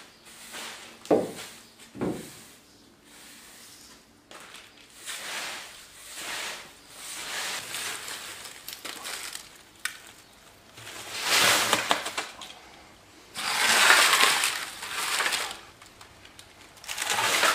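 Sweeping up metal shavings on a concrete floor: a push broom, then a hand brush pushing the scraps into a dustpan, in a series of scraping, rustling strokes with a faint metallic clink. A couple of knocks come in the first few seconds, and the loudest brush strokes come in the second half.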